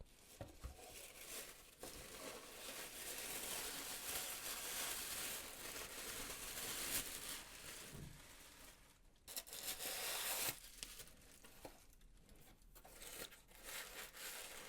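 Wrapping being crinkled and rustled by hand, in three stretches: a long one through the first half, a shorter burst past the middle, and softer handling near the end.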